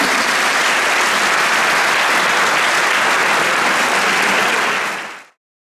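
Audience applauding steadily, fading out quickly a little after five seconds in.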